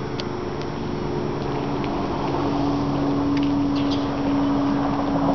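A steady mechanical drone with a constant low pitch and a noisy rumble under it. A few faint, short, high chirps sound over it.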